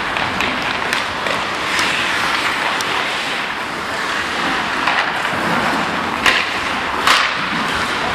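Ice hockey in play: skate blades scraping the ice under a steady hiss, with a string of sharp clacks from sticks and puck, the loudest two about six and seven seconds in.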